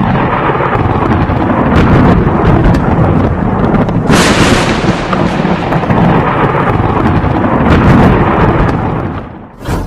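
Thunder sound effect: a loud, continuous rumble of thunder that starts suddenly, with a sharp crack about four seconds in, fading out near the end.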